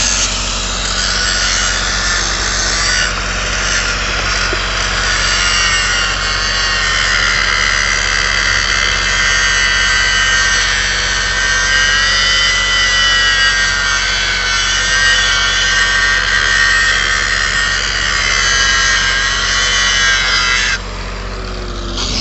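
Angle grinder grinding the welds of a steel patch plate on a leaking pipe, a steady high whine whose pitch wavers slightly as the disc is worked along the seam. It stops briefly near the end and starts again. A low steady hum runs underneath.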